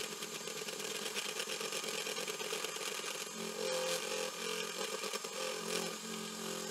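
Electric hand mixer running steadily, its beaters whipping egg white and powdered sugar into glaze in a glass bowl. Its hum grows a little stronger about halfway through.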